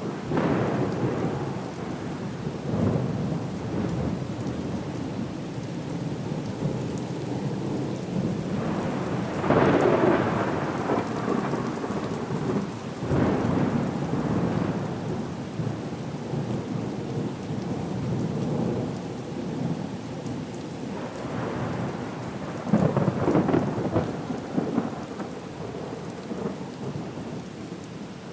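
Storm soundscape: steady rain with rumbling thunder that swells louder several times, most strongly about ten seconds in and again near twenty-three seconds.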